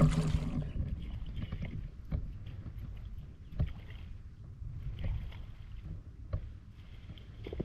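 Shallow floodwater sloshing and splashing in a rice field, with scattered short knocks over a steady low rumble.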